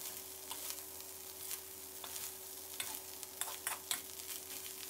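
Fried rice being stir-fried in a hot steel wok: a steady sizzle with a metal spatula scraping and tapping against the pan, and a quick run of sharp clinks about three to four seconds in.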